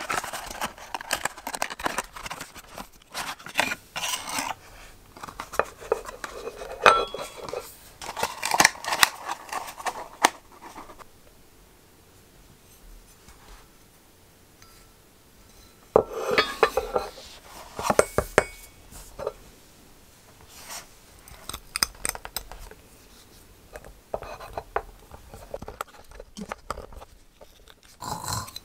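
Unpacking and handling a Marvis toothpaste dispenser: rustling and scraping of its cardboard box, and clinks and knocks of the white ceramic holder and its small metal key on a wooden table. The sounds come in bursts, with a quiet gap about halfway through.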